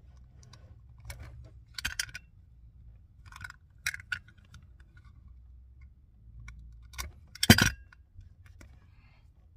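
A knife cutting and scraping the insulation of a thick amplifier power cable, then the cut insulation twisted off: scattered small clicks and scrapes, with one louder sharp click about seven and a half seconds in.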